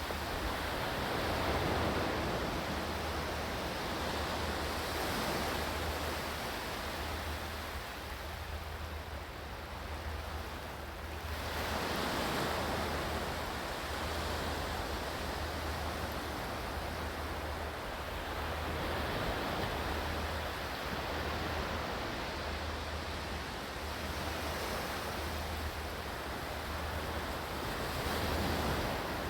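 Ocean surf: a steady wash of waves that swells and eases every few seconds.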